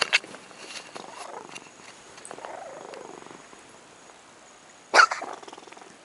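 Cat coughing: a sharp cough right at the start and a louder one about five seconds in, with a longer falling sound between them.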